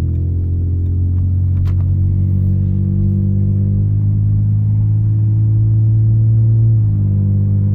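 Straight-piped 2001 Toyota 4Runner exhaust fitted with a Helmholtz resonator, running under light throttle while driving: a steady low drone whose pitch slowly rises, then changes abruptly near the end.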